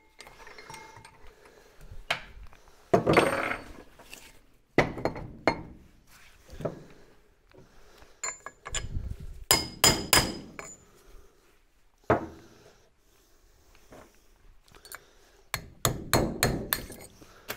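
Hammer striking a punch to knock the inner races out of an old rear wheel bearing in a brake drum. Irregular metal-on-metal blows, some in quick runs, several leaving a short metallic ring.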